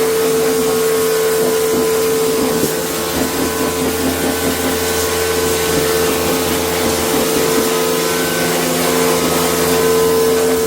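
A motor-driven cleaning machine running steadily: a constant hum-whine over a rushing noise, dipping slightly about three seconds in.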